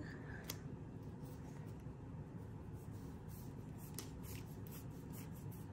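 Washi tape being wound back onto its roll by hand: faint rubbing of the paper tape with a run of small ticks and crackles in the second half.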